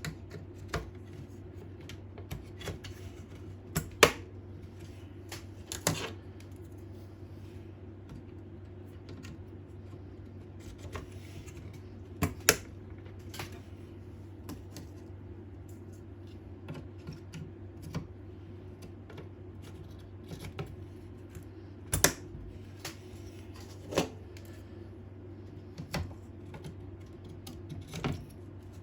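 Irregular clicks and knocks of computer hardware being handled during assembly, the loudest about four, six, twelve and twenty-two seconds in, over a steady low hum.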